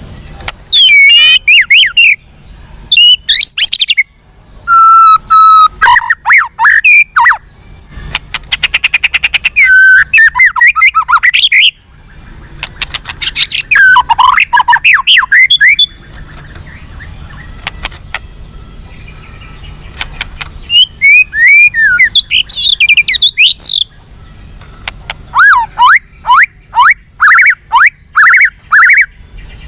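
White-rumped shama (murai batu) singing loud, varied phrases of rapid whistles, sweeps and trills, in bursts of one to four seconds with short pauses between them, over a faint steady low hum.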